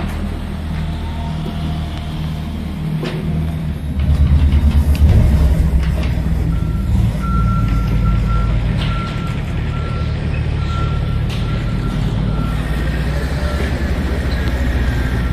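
Telehandler's diesel engine running, getting louder about four seconds in. From about six and a half seconds in, its reversing alarm beeps about twice a second as the machine backs up.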